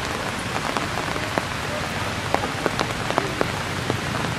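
Steady rain falling on forest leaves and leaf litter, with sharp drips striking close by every so often.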